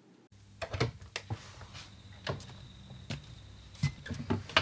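A string of irregular short clicks and knocks over a steady low hum that comes in about a third of a second in.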